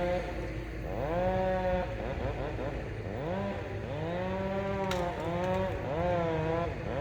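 Chainsaw cutting, its engine pitch dipping under load and rising again about once a second, while a large pine is being felled.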